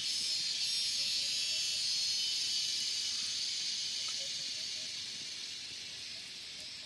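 Cicadas in the surrounding forest buzzing in a steady, high-pitched chorus that eases off slightly in the second half.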